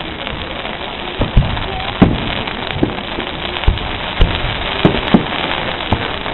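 Aerial fireworks shells bursting overhead: about nine sharp bangs at irregular intervals, the loudest about two seconds in, over a steady background rush.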